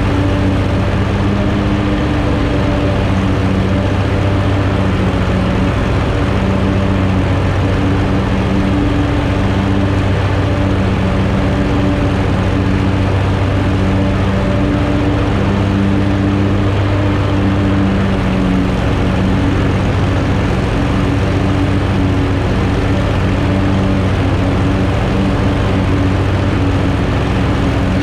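2020 Hustler Fastrak 54-inch zero-turn mower running steadily while cutting grass, heard from the operator's seat. The engine and cutting deck make a loud, even hum.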